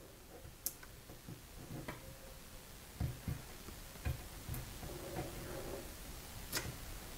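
Faint scattered ticks and soft knocks from a cat moving and playing inside a wooden cat house, with a couple of sharp ticks and a cluster of dull knocks in the middle.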